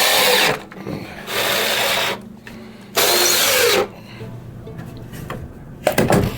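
Power drill driving screws into wooden stair treads in three short bursts, each under a second, followed by a few sharp knocks near the end.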